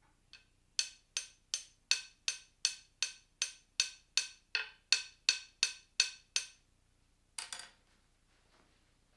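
A few-gram spruce mallet tapping the end of a wooden board about sixteen times in an even rhythm, close to three taps a second. Each tap rings briefly with a clear pitched tone, the board's first longitudinal vibration mode, which is picked up to measure the speed of sound in the wood. About a second after the last tap comes a short rattling clatter.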